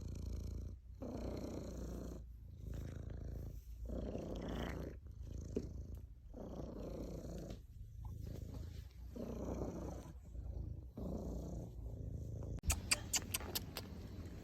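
Domestic cat purring, a steady rumble that pulses in and out with each breath, roughly one cycle a second or so. Near the end a quick run of sharp clicks or taps sounds over it.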